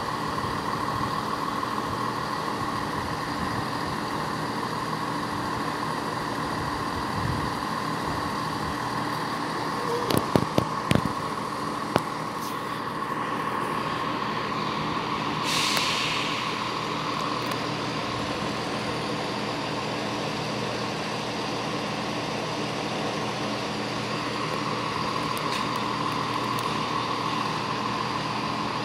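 Diesel multiple unit's underfloor engines running with a steady hum. A few sharp metallic clanks come about ten seconds in, and a short air hiss, like a brake release, follows a few seconds later.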